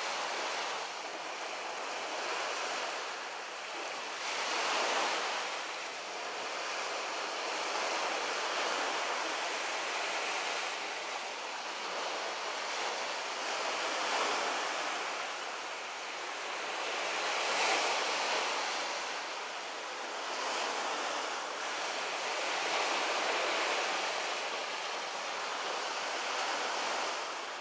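Small waves washing onto the shore: a steady hiss of surf that swells and eases every few seconds.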